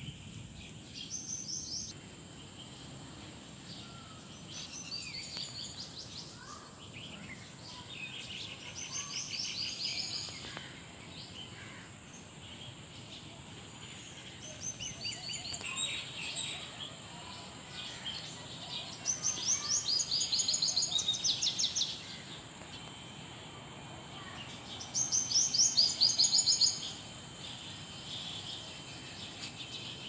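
Birds chirping and singing in park trees: scattered bursts of quick high chirps, with the loudest coming in two fast trills of two to three seconds each in the second half.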